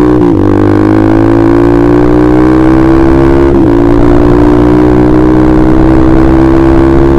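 Honda CBR150R single-cylinder engine running loud through a KJ Pro Performance aftermarket exhaust while riding, its pitch climbing slowly under acceleration. The pitch dips briefly twice, about a third of a second in and again about three and a half seconds in.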